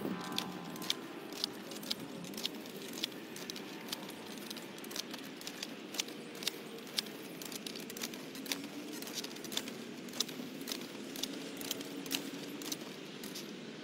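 Hand-pushed wheel hoe clicking and rattling as it is pushed through garden soil, about two sharp clicks a second, uneven in timing.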